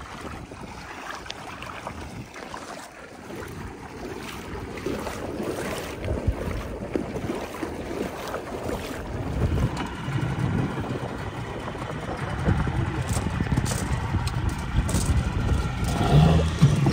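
Small motorboat under way: its engine runs steadily under the rush of water and wind, growing louder about five seconds in.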